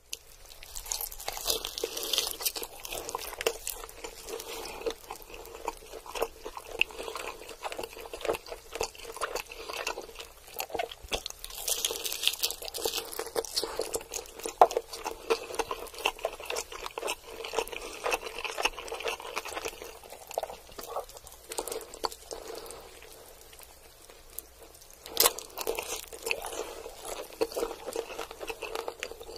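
Crisp, sauce-glazed fried chicken drumstick being bitten and chewed close to the microphone: dense crunching and chewing, with a quieter stretch about two-thirds of the way through before the crunching picks up again.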